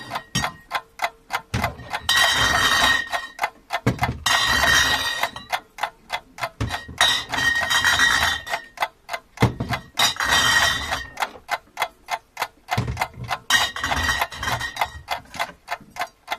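Steady clock-like ticking, about four ticks a second, with recurring stretches of denser clicking and a faint high tone.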